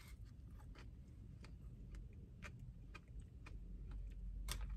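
Close-up chewing of a donut: soft, irregular wet mouth clicks and smacks, a few a second, over a faint low hum.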